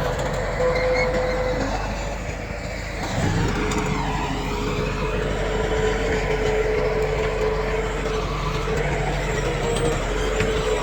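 Heavy diesel earthmoving machinery running steadily, a constant whine over the engine's rumble; it eases off briefly about two to three seconds in, then picks up again.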